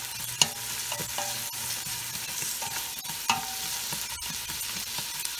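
Diced onion and garlic sizzling in hot oil in a stainless steel pot while a spoon stirs them, scraping the pot. The spoon knocks against the pot twice, about half a second in and about three seconds in, each a sharp clink with a short metallic ring.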